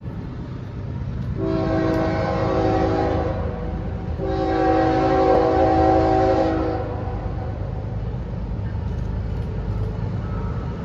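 Diesel locomotive's multi-chime air horn sounding two long blasts, each a chord of several steady tones, over the low rumble of the approaching train.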